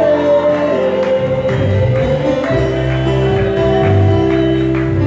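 Live gospel music from a church band: held keyboard chords over a bass line, with singing voices and a steady beat of percussion strokes from about a second and a half in.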